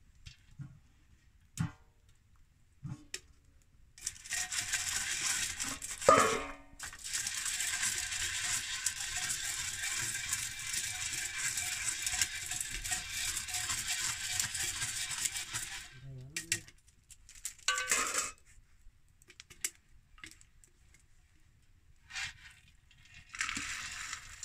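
Corn kernels rattling inside a small metal pot shaken over a wood fire for popping, a dense rattle lasting about twelve seconds with one sharp knock in it. Scattered clinks follow, and near the end there is a short rattle of the corn being tipped out into a metal bowl.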